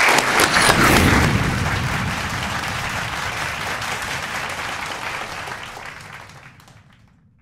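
Audience applauding, the clapping fading away to silence over several seconds.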